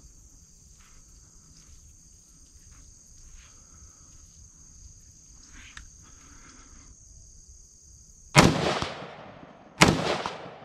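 Two gunshots about a second and a half apart near the end, each a sharp crack followed by a long fading echo. Before them there is a steady high-pitched drone.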